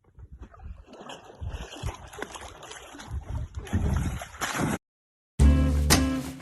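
An irregular rumbling noise with many knocks that grows louder, then cuts off suddenly. After a short silence, guitar music with a steady beat starts near the end.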